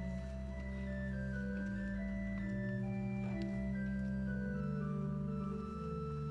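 Church organ playing slow, sustained chords over held bass notes, the harmony moving every second or so: music accompanying the preparation of the gifts at Mass.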